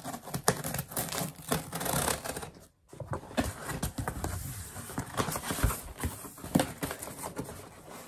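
Cardboard shipping box being opened with scissors and by hand: cutting, tearing and crinkling of the packaging with many small clicks and rustles, broken by a short pause about three seconds in.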